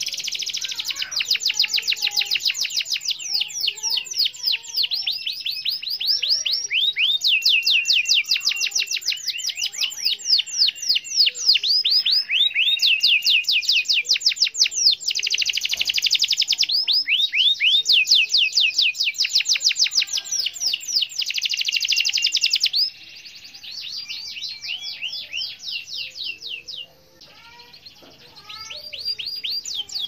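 White domestic canary singing a long, unbroken rolling song of rapid repeated trills, each phrase switching to a new trill every second or two. It grows softer over the last several seconds.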